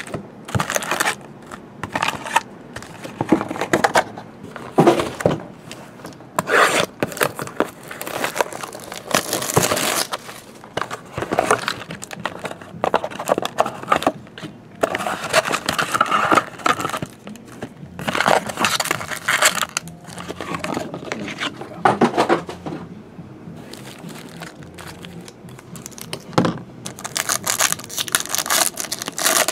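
Foil wrappers of baseball card packs crinkling and rustling in irregular bursts as the packs are handled and stacked. Near the end a pack is torn open.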